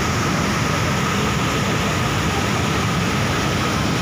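Water pouring over a weir and churning over the rocks below it: a steady rushing.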